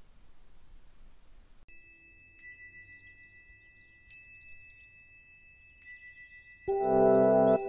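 Background music: after a faint hiss, a soft chiming intro begins, with two held high tones and a few light ticks. Near the end a loud ambient track with sustained chords comes in.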